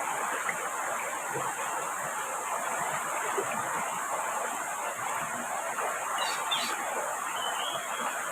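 Steady hiss of heavy rain and river water, with a few short high chirps about six to seven seconds in.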